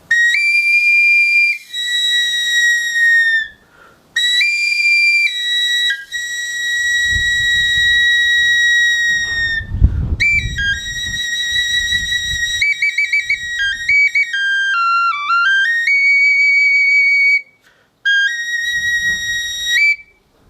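Replica pre-Hispanic flute of the Tezcatlipoca-flute design, played in high, whistle-like notes. It plays short phrases of held notes with brief gaps, some quick trills, and a run of notes stepping down and back up. A low knock comes about halfway through.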